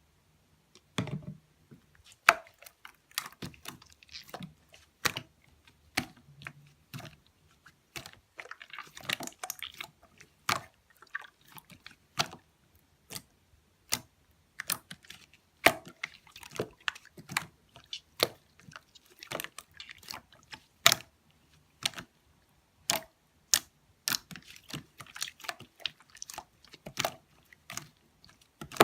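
Chocolate mixed slime being pressed and stretched by hand, giving irregular sticky clicks, pops and crackles, several a second at times.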